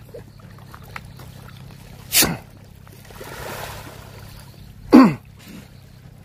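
Feeding fish stirring the surface of a pond close in, a soft splashing that swells about three seconds in. Two short, loud, voice-like bursts cut through it, one about two seconds in and one about five, the second dropping in pitch.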